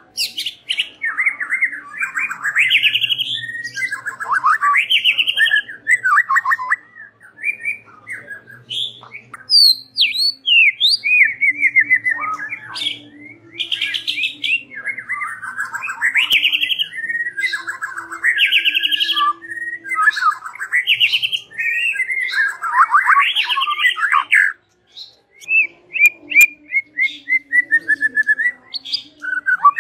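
White-rumped shama singing a loud, varied song of fast rattling trills and sweeping whistles, in phrases of a second or two with short gaps and a longer pause about 25 seconds in. This is the kind of song used as a lure (pemikat) to set other shamas answering.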